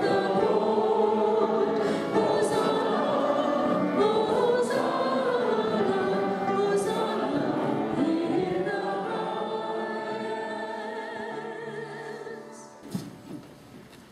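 Choir singing a sung part of the Mass, the voices slowly getting quieter until the last held chord fades out near the end. A few soft knocks follow.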